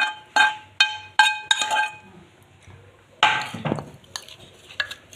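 A metal utensil knocking against the rim of a frying pan, five ringing clinks in quick succession, to shake off fried paneer crumbs. About three seconds in comes a scrape on the plate as the mixing begins, followed by a few light clicks.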